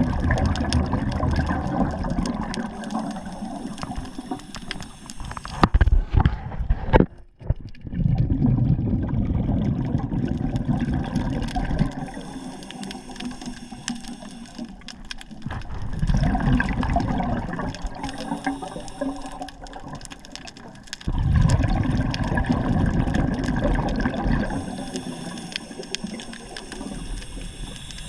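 Water sloshing and surging, swelling and easing in waves every few seconds.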